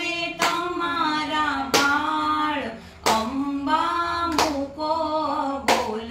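Women and a girl singing a Gujarati devotional garba to the mother goddess in unison, with long held, gliding notes, and a sharp hand clap keeping time about every 1.3 seconds, five claps in all.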